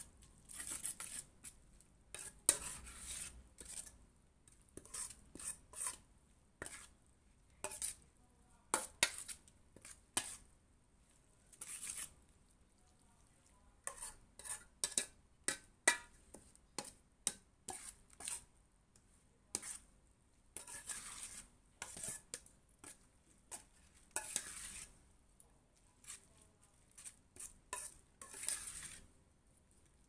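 Metal spoon stirring and tossing instant noodles in a stainless-steel mixing bowl: irregular scrapes and clinks of metal on metal, in short bursts with brief pauses between strokes.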